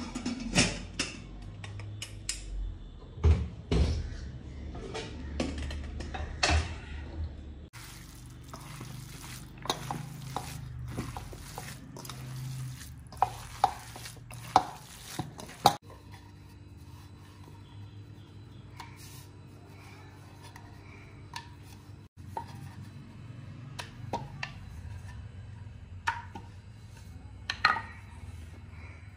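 Kitchen dishes and utensils clinking and clattering in irregular sharp knocks, as in food being prepared and served.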